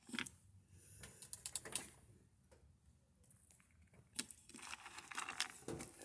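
A squirrel chewing peanuts, with faint quick clicks and crunches and light rustling, busier from about four seconds in.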